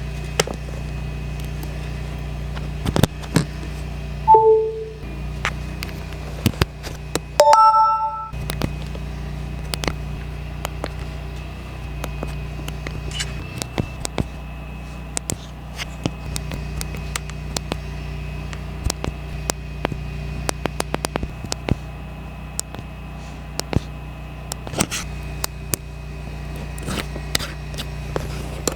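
Steady low hum with many short clicks and taps, and two brief electronic beeps, one about four seconds in and one of several tones together about seven and a half seconds in.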